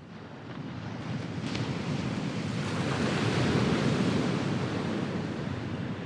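Small sea wave breaking and washing up a sandy beach: a rush of surf that swells over the first few seconds, peaks in the middle and starts to die away near the end.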